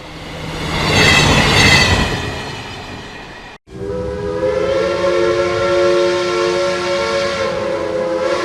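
Train sound effects: a train passing with its horn sounding and falling slightly in pitch, swelling and fading away. After an abrupt cut, a long steady train horn chord of several notes.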